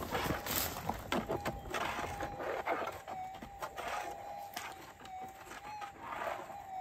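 Minelab GPZ 7000 metal detector's steady threshold hum, with a slight waver in the tone as the coil passes over a faint, quiet target. Scattered crunching of dry leaf litter under the coil and boots.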